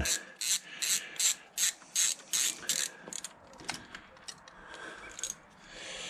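Socket ratchet clicking in quick repeated strokes, about two or three a second, as it unscrews the end bolt of a Honda VFR800's front cam chain tensioner. After about three seconds the strokes thin out to a few scattered clicks.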